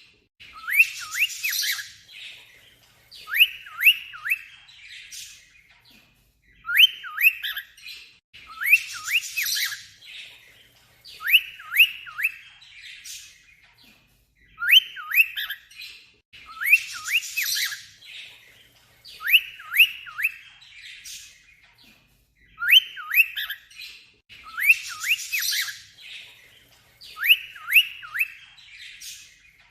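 Cockatiel imitating an alarm-clock beep: quick rising whistled chirps in groups of three or four, alternating with harsher squawks, repeated in a regular cycle about every four seconds.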